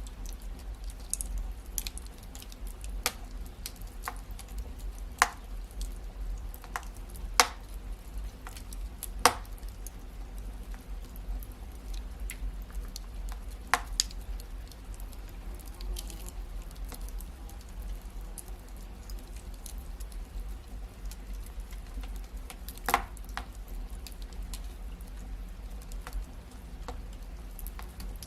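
Wood fire crackling in a fireplace: scattered sharp pops and snaps at irregular intervals over a steady low background, with a few louder pops standing out.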